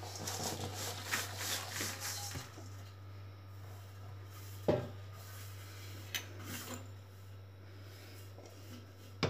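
Coarsely ground dry ingredient poured from a metal bowl onto a heap in a large plastic basin, a rushing, sliding hiss for about two seconds. A single sharp knock about halfway through, then a few small clicks, over a steady low hum.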